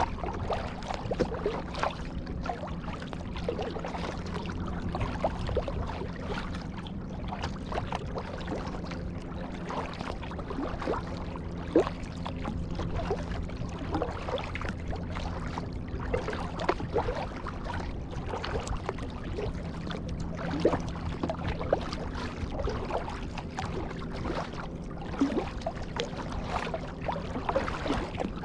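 Kayak paddling: the paddle blades dip and splash in the water again and again, with small knocks and trickling water along the hull. A steady low hum runs underneath.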